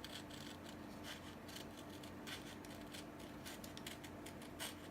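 Scissors snipping through a paper label covered in clear tape: a string of faint, irregular snips and clicks.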